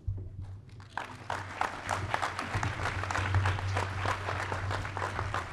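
Audience applauding, many hands clapping together, starting about a second in.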